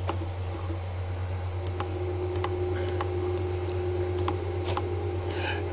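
About six sharp computer mouse clicks, spaced irregularly, over a steady low electrical hum.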